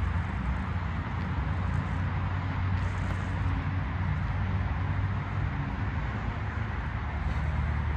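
Steady outdoor city background noise: a continuous low rumble with a softer hiss above it and no distinct events.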